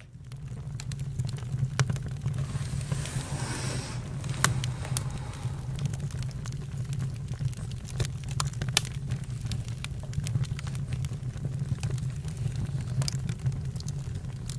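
Campfire burning: irregular sharp pops and crackles of burning wood over a steady low rumble.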